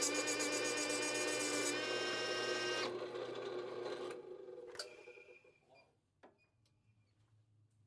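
Power tools running on a spinning steel shaft, a drill press turning it against a grinder, with a rapid pulsing beat. They are switched off about two to three seconds in and wind down to quiet within a few seconds, followed by a couple of small clicks.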